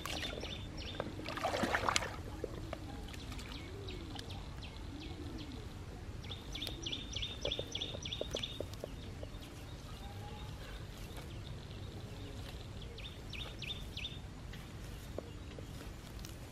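Muddy water sloshing as a rubber boot steps through it, loudest about a second and a half in, then soft scraping and poking of a stick in wet soil, over outdoor background noise with rapid runs of short high chirps twice.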